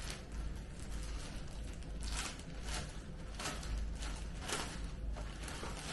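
Clear plastic garment bag crinkling and rustling in short bursts, several times over, as a garment in it is handled and pulled from the box, over a steady low hum.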